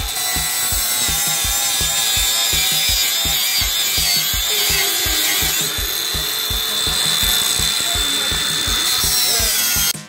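DeWALT DCG405 cordless angle grinder with a flap disc grinding steel: a steady, loud hiss and whine that stops abruptly just before the end. Background music with a fast steady beat plays underneath.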